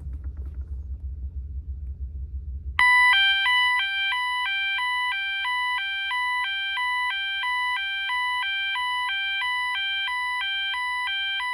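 System Sensor MA/SS-24D fire alarm horn sounding its 800/1000 Hz alternating tone, a loud two-pitch alarm flipping steadily back and forth between a lower and a higher note. It comes on abruptly about three seconds in, after a low hum.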